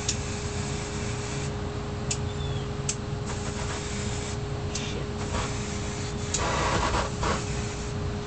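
Aerosol spray can hissing in short bursts, each about a second long, with a few sharp clicks between them. A steady low hum runs underneath.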